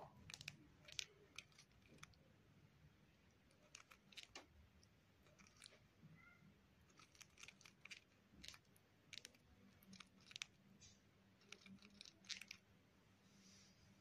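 Cockatiel grinding its beak: faint, irregular clicks and crunches. Beak grinding is the sound of a relaxed bird settling to rest.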